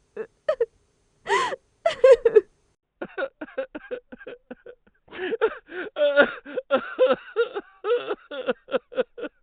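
A woman crying, in sobbing gasps: a few separate cries at first, then from about three seconds a quick run of short, broken sobbing breaths.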